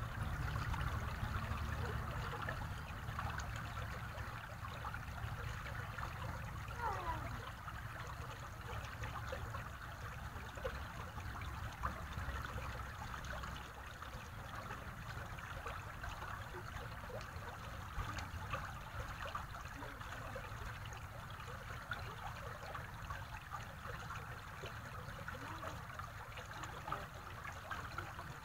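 Shallow stream water running over a pebble bed, a steady trickling with small splashes and crackles throughout.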